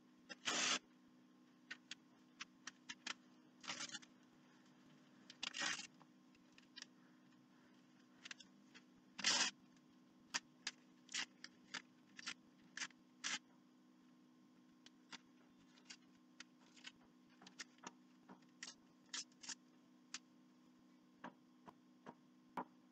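Paper and tool handling: a few short rustling bursts from a crumpled magazine page, with many scattered light clicks, over a faint steady hum.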